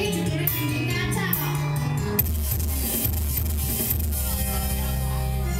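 Live dangdut music over a sound system: a woman sings into a microphone over a steady bass line and a regular beat, with the singing plainest in the first two seconds.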